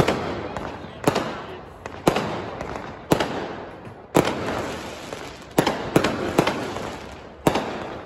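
Aerial fireworks bursting overhead: about nine sharp bangs, roughly one a second with three in quick succession a little past the middle, each followed by a crackle that fades away.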